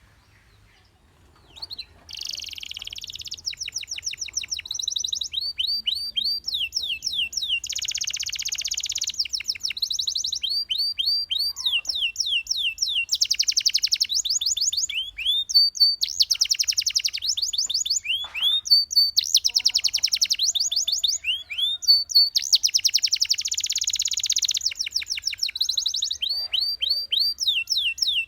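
Domestic canary singing: after a short pause, a long unbroken song of fast trills and rolls of repeated down-sweeping notes, switching from one phrase to the next every second or so.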